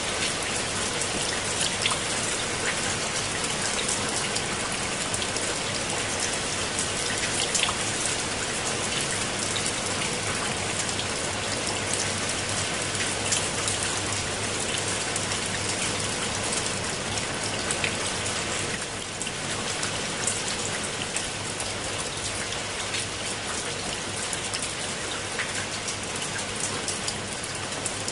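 Steady rain falling on broad leaves and wet stone steps, with many single drops striking close by.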